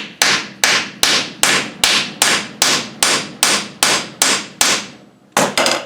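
Hammer tapping steadily on the cylinder cover of a Rover 3500 steering box, about two to three strikes a second, each with a short ring, to loosen the tight cover. After a brief pause near the end come three quick taps.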